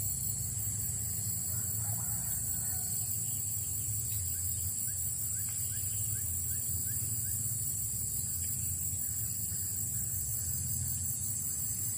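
Steady high-pitched insect drone, such as crickets or cicadas, with a low hum beneath it and a short series of faint rising chirps about five to seven seconds in.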